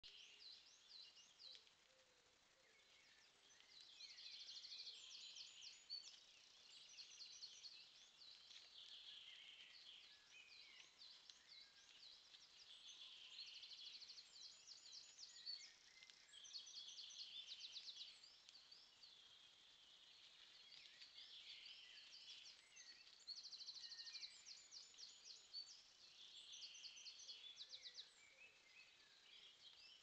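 Faint birdsong: several songbirds singing at once, with overlapping chirps and sweeping notes and repeated rapid trilled phrases.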